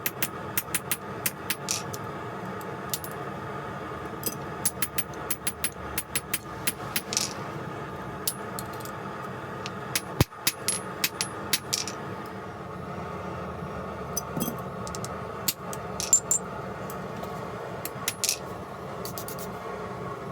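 Light metal-on-metal taps and clinks from small steel pieces being handled and tapped, irregular and in clusters, each with a short bright ring, over a steady hum.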